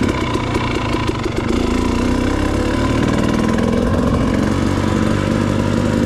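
KTM two-stroke dirt bike engine running steadily at low speed as the bike rolls along a trail, its exhaust pulses most uneven in the first second or so.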